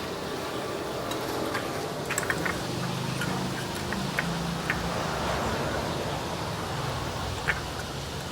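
Steady low background rumble with a faint hum, broken by scattered light clicks and taps, about a dozen over several seconds.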